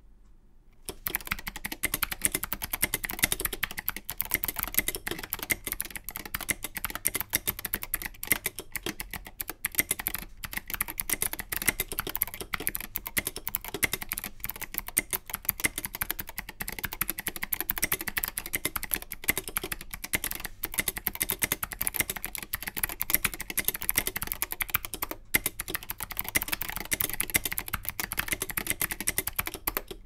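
Custom Vortex Pok3r mechanical keyboard with Zealiostotle switches (clicky, Zealio-based hybrids with click jackets) and SA-profile keycaps, typed on continuously at a brisk, even pace. The typing starts about a second in.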